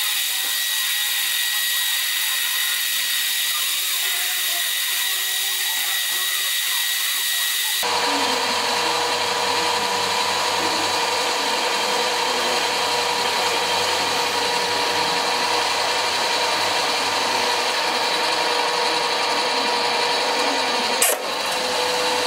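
Mini lathe running with a parting tool cutting into a spinning bar held in its chuck: a steady machine whine whose pitch and tone change abruptly about eight seconds in. About a second before the end comes one sharp crack, the parting tool snapping.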